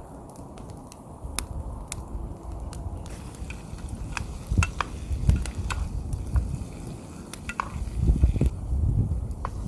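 Food frying and being stirred in a pan over a camp stove, with scattered sharp crackles and pops over a low rumble. Dull knocks come twice, about halfway through and again near the end.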